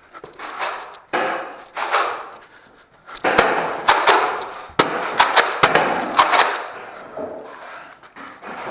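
Nerf Rival blasters firing, with foam balls smacking off walls and surfaces: a run of sharp clacks and snaps, thickest in the middle.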